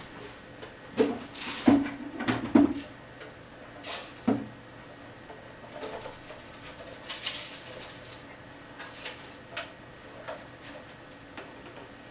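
Plastic clicks and knocks from handling the bagless canister vacuum's filled cyclone dust bin, busiest about one to three seconds in, then sparser and fainter.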